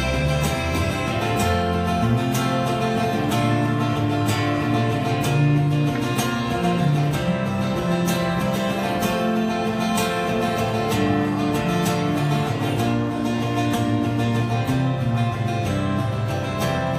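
Live acoustic guitar strummed steadily, with an electric bass playing low notes underneath: an instrumental passage with no singing.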